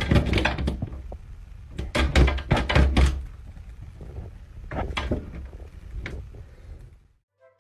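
Repeated knocks and thuds in quick clusters over a low rumble, loudest in the first three seconds, thinning out, then cutting off shortly before the end.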